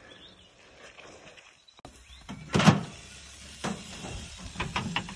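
Metal door of a small stainless-steel wood-fired oven being opened with one loud clank, followed by a few lighter metallic clicks and knocks as it is handled.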